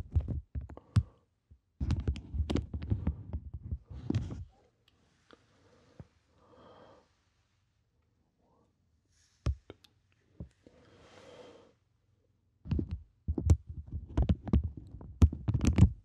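Clear plastic bags being crinkled and squeezed by fingers close to the microphone: dense crackling with deep handling thumps for the first few seconds. A mostly quiet stretch in the middle holds only a few clicks and faint rustles, then heavy crinkling starts again about three-quarters of the way through.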